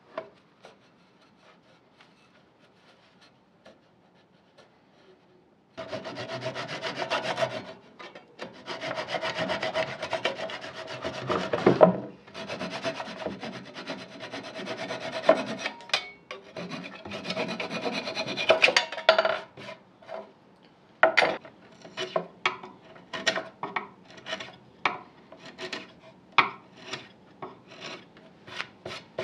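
Fine-toothed hand backsaw cutting through a wooden pin glued into a holder strip: about six seconds in, rapid continuous sawing strokes start and run for some fourteen seconds. After a short pause, a string of separate, sharp short strokes follows as a hand tool trims the cut flush.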